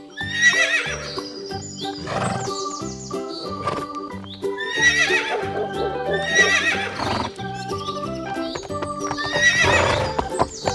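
A horse whinnying about four times over light background music; each whinny is a wavering call.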